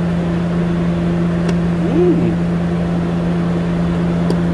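Steady low mechanical hum from background machinery, with a brief rise-and-fall sound about two seconds in and a couple of faint light clicks.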